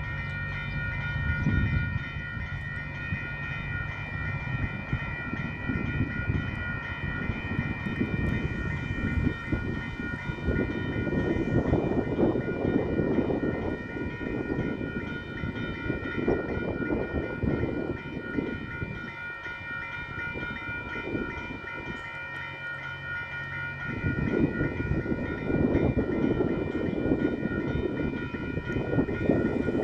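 Level crossing warning bells ringing continuously in a steady high ringing, over a low rumble that rises and falls.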